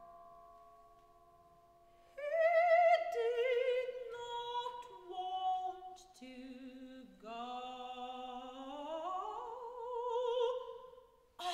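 A soprano singing an unaccompanied operatic line with wide vibrato in several phrases, the last one rising in pitch; it enters as sustained metallic ringing tones fade away. Near the end a cymbal is struck sharply and rings on.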